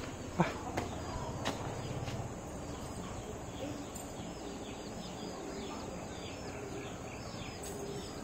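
Birds chirping steadily in the background, many short calls throughout. A single sharp knock about half a second in, with two fainter taps in the first second and a half.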